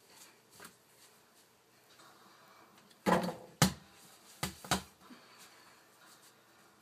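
Mini basketball thudding against the hoop, door or floor: four sharp knocks in under two seconds, starting about three seconds in, the first the loudest with a short ring.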